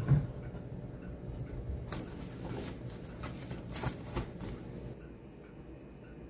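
Handling noise of camping gear being packed: clicks, knocks and scraping as a folding tripod is clamped onto a backpack, with a knock right at the start and clusters of clicks about two and four seconds in. Quieter after about five seconds.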